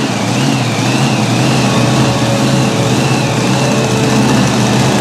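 Mini Unlimited pulling tractor's engine running steadily at idle with a loud, deep, even rumble.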